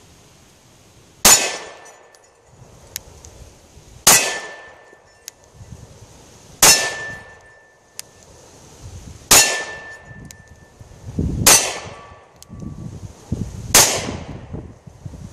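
Beretta Nano 9mm subcompact pistol firing six single shots, spaced about two to three seconds apart, each a sharp crack with a short ringing tail.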